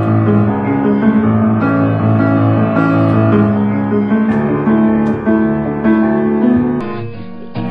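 Piano being played by hand: sustained chords with notes moving over them. Near the end it breaks off and a duller-sounding recording begins.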